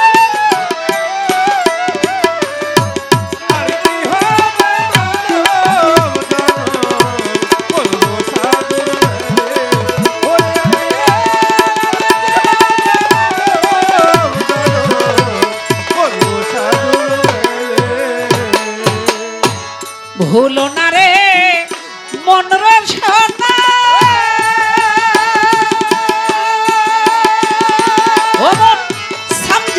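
Instrumental interlude of Bengali baul folk music: a violin plays the melody with wavering ornaments over a fast tabla rhythm with sliding bass strokes. The drums thin out briefly about two-thirds of the way through before the melody carries on.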